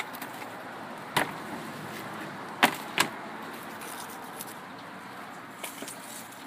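A few sharp knocks and taps as a gag grouper is cut and turned over on a plastic cutting board: one about a second in, then two close together near the middle, with fainter taps later, over a steady background hiss.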